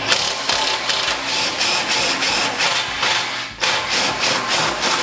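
Cordless power driver running, a fast rhythmic rattle as it backs long bolts out of an old garden tractor's hood, with a short break a little past halfway.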